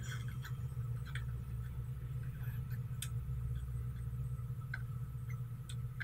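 Faint scattered ticks of a soldering iron tip and tweezers touching the pads while soldering a charging-port flex cable, about five in all, over a steady low electrical hum with a faint thin high tone.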